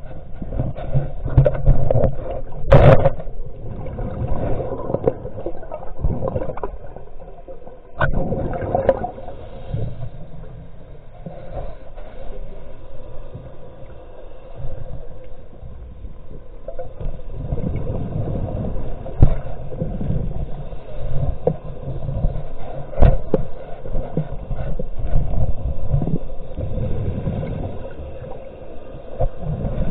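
Muffled water sloshing and gurgling against a low rumble, with irregular knocks and scrapes scattered throughout.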